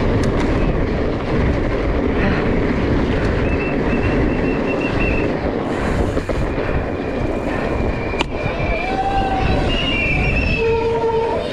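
Steady loud rush of wind and rattle from a downhill mountain bike descending at speed, with several short high-pitched squeals in the second half and a sharp knock about eight seconds in.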